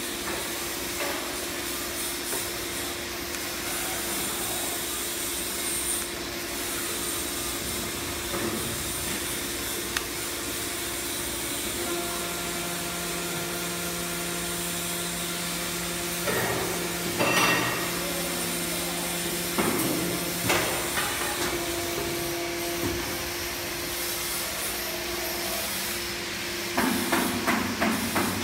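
CNC aluminium profile bending machine running as its rollers feed and curve a flat aluminium strip: a steady motor hum with a constant tone, joined by a lower tone for about nine seconds in the middle. Metallic knocks come around that stretch, and a quick run of knocks comes near the end.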